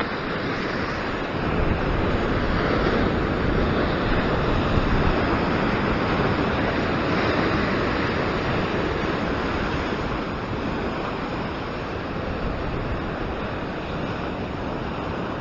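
Ocean surf breaking and washing over a flat rock ledge: a steady rush of white water that swells a little in the first half and eases slightly later.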